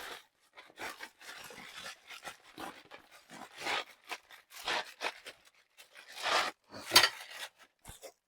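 Irregular rustling and scraping as packaging and small parts are handled during unpacking, with a sharp knock about seven seconds in.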